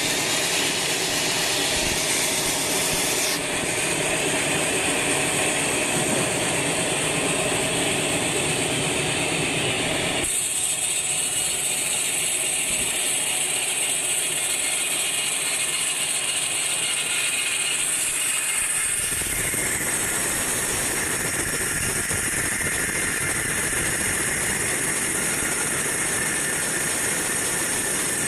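Band sawmill running and cutting a teak log, making a loud, steady mechanical noise with some rattling. The sound changes abruptly in character three times.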